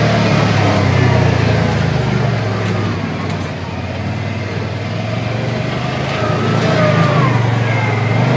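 ATV engine running under way, easing off a little in the middle and picking up again near the end.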